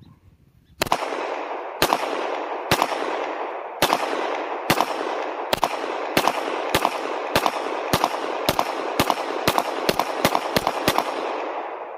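A string of about twenty pistol shots from a first-generation Smith & Wesson M&P semi-automatic pistol, each shot ringing out in a long echo, the shots coming faster toward the end.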